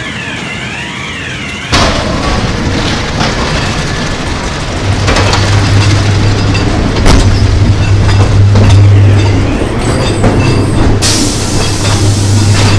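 Ghost train car rumbling and clattering along its track, with a sudden loud bang about two seconds in as it pushes through the doors into the dark ride. A warbling tone comes before the bang, a low steady hum joins from about five seconds, and a burst of hiss comes near the end.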